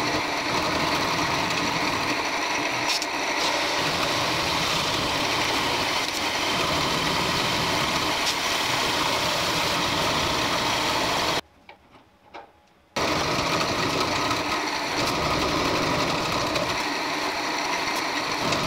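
Face mill cutting an F114 steel block on an HBM 45 milling machine: a steady machining noise from the spinning cutter and spindle. It cuts out for about a second and a half near the middle, then carries on.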